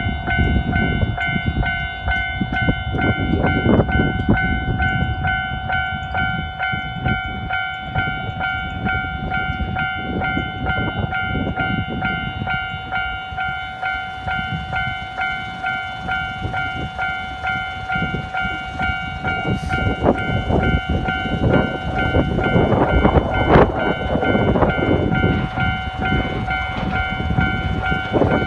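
Japanese level-crossing electronic warning alarm, a Meiji Sangyo unit, ringing its repeated two-tone 'kan-kan' continuously while the crossing is closed. Under it an electric commuter train runs past over the rails, its running noise loudest about twenty-three seconds in.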